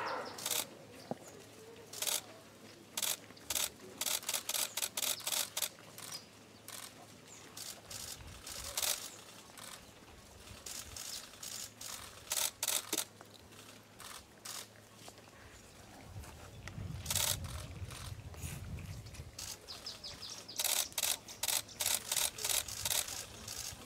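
Camera shutters clicking in rapid bursts, several firing at once, with a brief low rumble about two-thirds of the way through.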